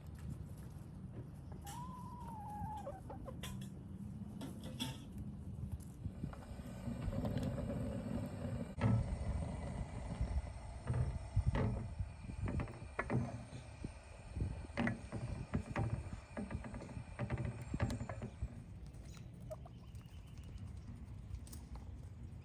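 Birds calling over a low steady rumble outdoors, with a short wavering call about two seconds in and scattered clicks and knocks from about nine seconds on.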